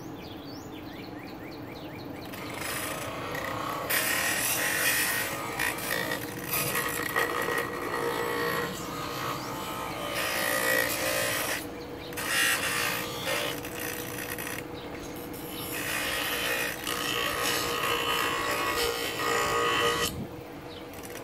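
Bench grinder running with a steady hum while an oak wood cutout is pressed against the grinding wheel, giving a loud, harsh grinding noise. The grinding starts two or three seconds in and breaks off briefly a few times as the piece is lifted and repositioned.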